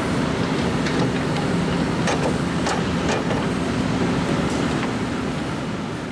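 Diesel engine of a John Deere 710L backhoe loader running steadily, with a few sharp metallic clanks about two to three seconds in, fading out near the end.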